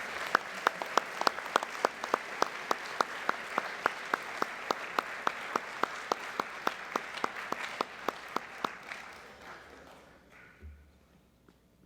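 Audience applauding an award recipient. One clapper close to the microphone stands out with sharp, even claps about three times a second. The applause dies away about ten seconds in.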